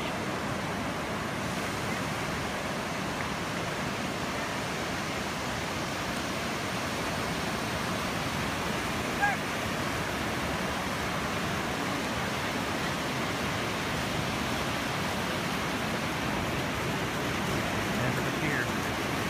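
Ocean surf breaking and washing up the beach, a steady rushing hiss, with one short, sharp pitched sound about nine seconds in.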